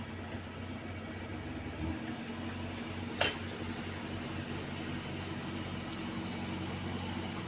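Heavy road-paving machinery running steadily, with an engine hum whose lowest tone shifts about two seconds in. There is a single sharp clank a little after three seconds in.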